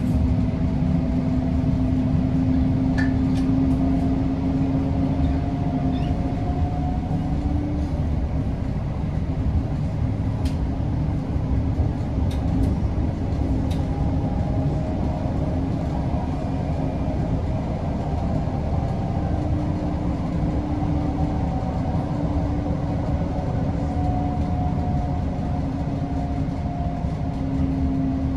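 TriMet MAX light rail train running, heard from inside the car: a steady rumble of wheels on rail with a motor hum that slowly shifts in pitch, and a few faint clicks.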